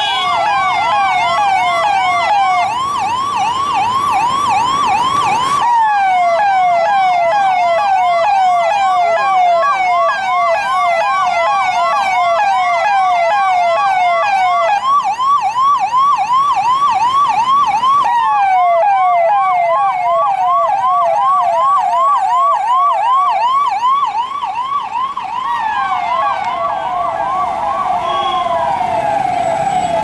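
Electronic sirens of police vehicles sounding through roof-mounted horn loudspeakers, loud and continuous. They mostly give a fast yelp of quick rising sweeps, about four a second, broken a few times by a slower falling wail.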